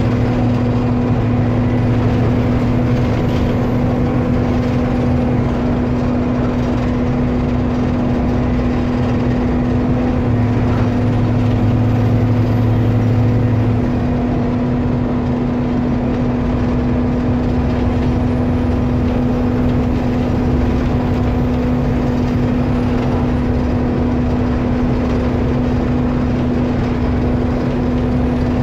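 Rear-mounted diesel engine of an Alexander ALX400 double-decker bus, heard from the back seats of the lower deck, with a steady engine roar while under way. Its low note shifts about halfway through.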